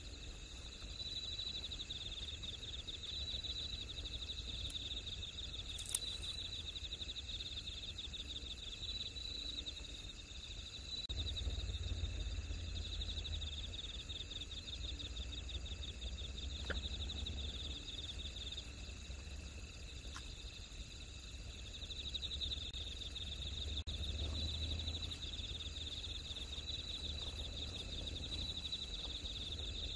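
Crickets chirping in a continuous high-pitched pulsed trill that swells and eases in long phrases, over a low rumble. A single sharp click about six seconds in.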